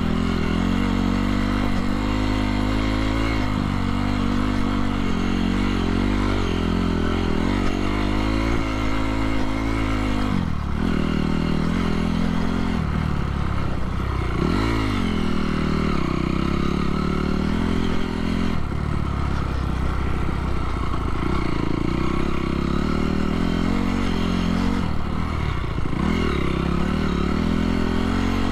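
A 2017 Honda CRF250R's single-cylinder four-stroke engine running under way on a dirt trail, its pitch dropping and climbing again several times as the throttle is rolled off and back on.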